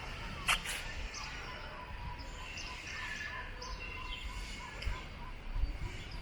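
Small birds chirping over a steady low background rumble, with one sharp click about half a second in.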